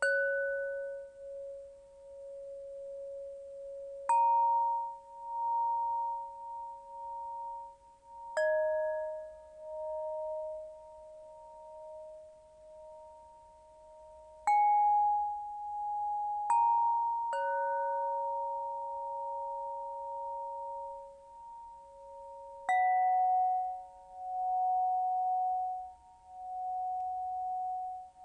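Crystal pentonia struck slowly, about seven single notes a few seconds apart. Each starts with a bright ping that fades quickly, then rings on for many seconds with a slow pulsing waver, the notes overlapping into a held chord.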